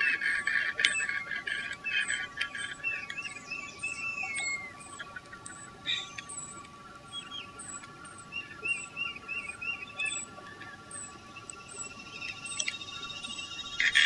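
Birds chirping in short series of quick notes, over a regular high ticking about twice a second and a faint steady tone.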